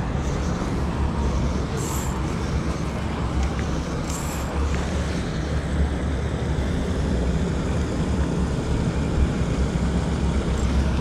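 Steady rumble of motor-vehicle engines running, over a constant rush of flowing water.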